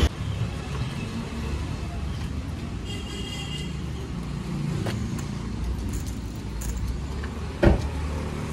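Car engine running close by as a low, steady rumble, with one sharp thump near the end.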